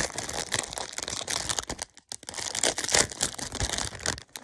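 Clear plastic packaging bag crinkling and crackling as small hands pull it open, with a brief pause about halfway through.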